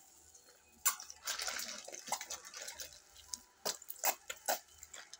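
Liquid poured into a stainless steel bowl of crumbly pie-dough mixture, splashing and dripping, with a few sharp clicks in the second half.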